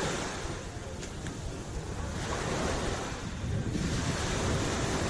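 Sea waves washing onto the shore, one wash swelling and fading in the middle, over a low rumble of wind buffeting the microphone.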